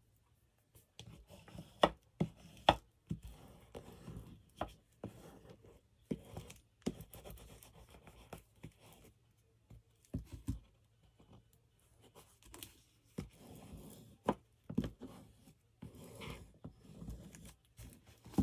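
A curved-edged smoothing tool rubbed over freshly glued paper strips to press them flat: soft, uneven scratchy strokes broken by scattered taps and clicks as the paper and tool are handled.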